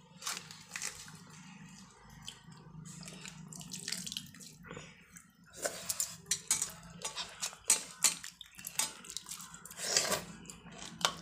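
Hand mixing and scooping watery rice on a plate: wet splashing with irregular light clicks, busier in the second half.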